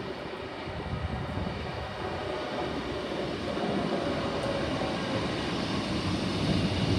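Northern diesel multiple unit approaching and running past along the platform, its engine and wheel rumble growing steadily louder as it nears.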